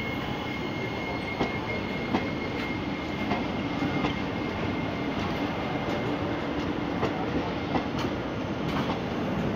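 Indian Railways express passenger coaches running past at speed: a steady rumble of wheels on rail with sharp clicks at the rail joints. A thin high whine at the start fades out after about three seconds.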